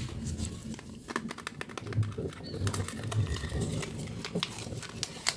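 Wet bar soap being lathered: squishy, squelching rubs with many small sharp crackles of wet foam.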